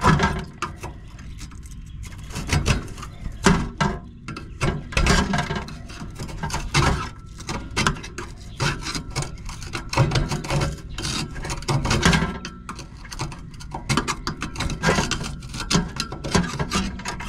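Screwdriver scraping and picking at silicone sealant and rust on a gas furnace heat exchanger's burner openings, in irregular scrapes and clicks. The silicone is being cleared off a small hole in the heat exchanger that it was covering up.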